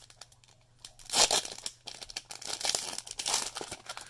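A Magic: The Gathering booster pack's foil wrapper torn open with a sudden loud rip about a second in, then crinkling as the wrapper is pulled apart and handled.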